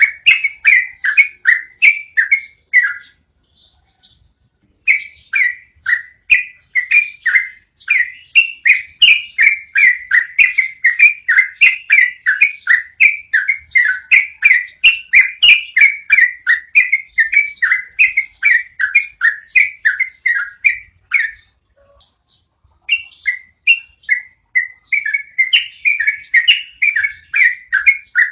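Yellow-vented bulbul (trucukan) singing a long rolling song of rapid, repeated notes, about three a second, in long runs with two brief pauses.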